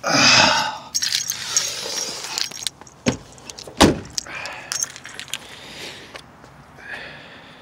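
A bunch of keys jangling amid handling noise, with two sharp knocks about three and four seconds in and lighter clicks after.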